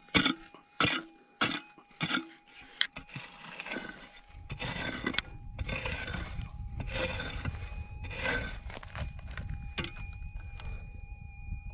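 Hand prospecting pick striking hard dry dirt about five times in the first three seconds, then scraping and raking loose soil in a few long strokes. A faint steady detector tone runs underneath, and higher steady detector tones come in near the end as the coil is swept over the dug hole.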